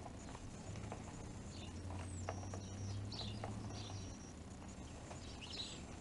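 Small birds feeding from a metal rain-gutter feeder: scattered light pecking taps, with short high chirps from the flock.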